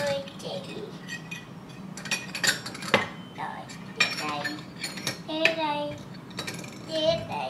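Small stainless steel toy pots, lids and bowls clinking and clanking against each other as they are picked up, stacked and set down, in irregular metallic strikes with a brief ring after each.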